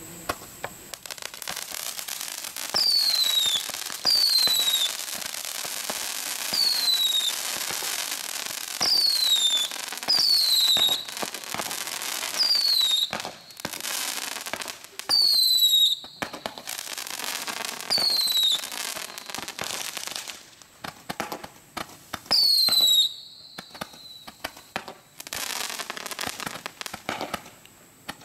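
Consumer fireworks from a Diamond Fireworks Silver selection box going off: a string of shrill whistles, each falling in pitch, every one to three seconds over continuous hissing and crackling. The whistles stop about two-thirds of the way through, leaving crackling and scattered pops.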